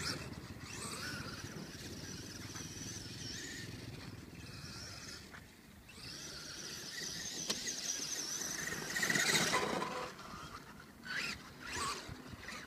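Traxxas E-Revo brushless RC truck's electric motor whining at a high pitch that wavers with the throttle as it drives over sand, over a low rushing noise. The whine drops out briefly about five seconds in, is loudest about nine seconds in, and comes back as two short bursts near the end.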